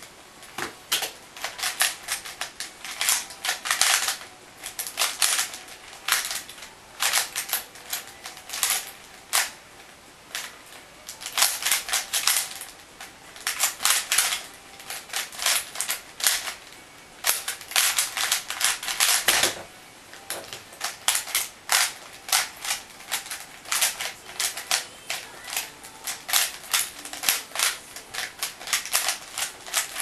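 Plastic layers of a 3x3 Rubik's cube clicking and clacking as they are turned very fast, in rapid bursts of turns broken by brief pauses.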